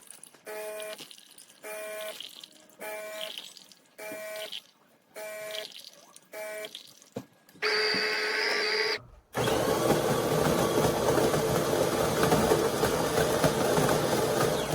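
De'Longhi Dinamica fully automatic espresso machine working through a brew cycle. First come short humming pulses about once a second, then a brief louder hum. About nine seconds in, the built-in grinder starts grinding beans with a loud, steady grinding noise.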